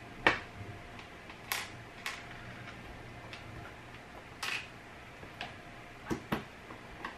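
Clicks and taps of a black plastic enclosure being fitted shut and its screws driven in with a small screwdriver. The clicks come irregularly: the loudest is a sharp one near the start, and two more come close together near the end.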